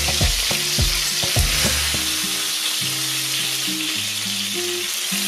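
Pollock pieces frying in hot vegetable oil in a frying pan: a steady sizzle. In the first two seconds there are a few sharp knocks of a wooden spatula against the pan as the browned pieces are lifted out.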